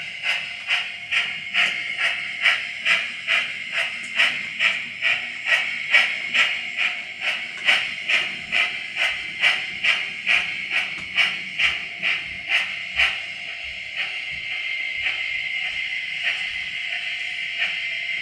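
Sound-decoder steam locomotive on a 00 gauge model railway, played through the model's small speaker: steady chuffing at about two and a half beats a second over a constant hiss of steam. About thirteen seconds in, the chuffs stop and only the hiss carries on, with a few light clicks.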